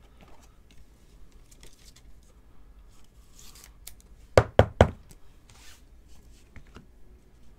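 Trading cards in plastic holders being handled and set down on a table: faint sliding and rustling, then three quick sharp knocks within half a second, a little over four seconds in.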